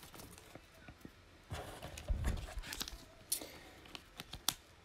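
Trading cards handled and flipped through by hand: faint scattered clicks and slides of card against card. A louder rustle with a dull bump comes from about a second and a half to three seconds in.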